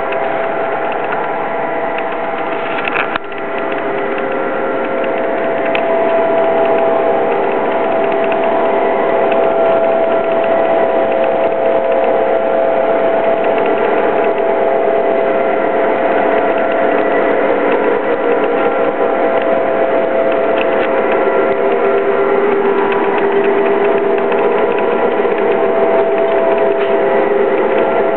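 Lionel Legacy O-gauge F7 model diesel train running on three-rail track: a dense, rapid clatter of wheels and gears under a steady whine. It grows louder from about three to six seconds in, then holds steady.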